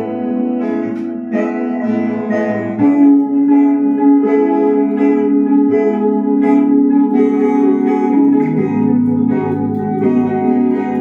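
Instrumental music: plucked string notes, guitar-like, over held chords that change every second or two.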